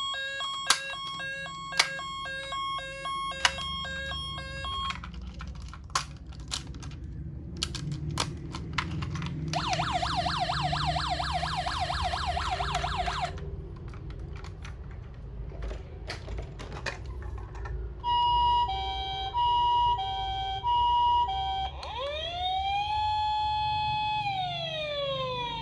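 Toy ambulances' electronic sirens from small built-in speakers, one after another: a stepped beeping pattern at first, a fast warbling yelp about ten seconds in, a two-tone hi-lo siren near 18 s, then a wail that rises, holds and falls. Sharp plastic clicks come between the siren sounds, over a low rumble.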